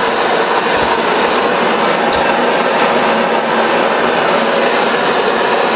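1914 Pythagoras 8 hp oil-fuelled hot bulb engine running steadily close up: a loud, even mechanical clatter.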